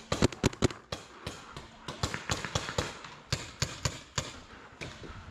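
Paintball markers firing in quick, irregular volleys of sharp pops, several a second. The loudest shots come in the first second, and further bursts follow after about two seconds.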